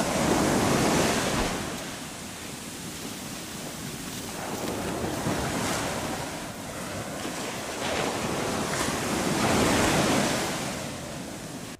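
Sea surf breaking on a beach, the rush of the waves swelling and fading every few seconds.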